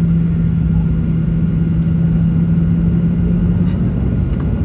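Boeing 737-800 taxiing on CFM56-7B jet engines at idle, heard inside the cabin: a steady low rumble with a humming tone that fades about three and a half seconds in.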